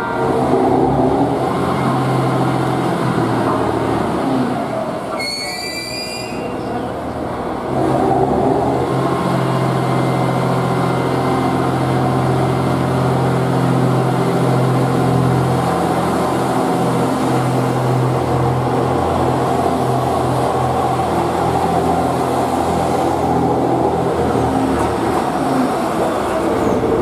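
JR East GV-E400 diesel-electric railcar running along a station platform, its engine and drive giving a steady low hum that grows louder about eight seconds in as it powers up. A brief high-pitched squeal about five seconds in.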